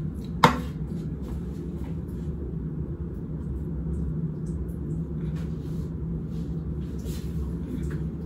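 Steady low background hum, which the uploader believes is an air conditioner but is not sure, and calls loud. A sharp click comes about half a second in, and faint scratchy strokes from a toothbrush smoothing hair edges come later.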